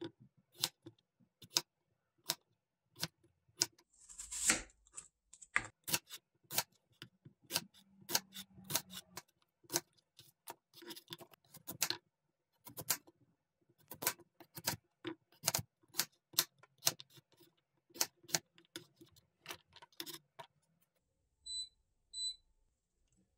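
Chef's knife chopping potatoes and a carrot into chunks on a plastic cutting board: a string of sharp knocks of the blade hitting the board, about one to two a second. Near the end, two pairs of short high electronic beeps from an induction cooktop's controls.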